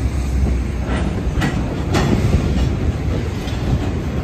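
Freight cars, covered hoppers and tank cars, rolling slowly through a rail yard over a steady low rumble. The wheels click over rail joints a few times about 1 to 2 seconds in.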